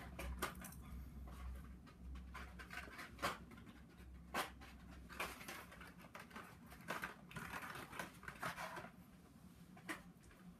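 Hot Wheels cars in plastic blister packs being handled and set down: scattered clicks, taps and short rustling scrapes of card and plastic over a low steady hum.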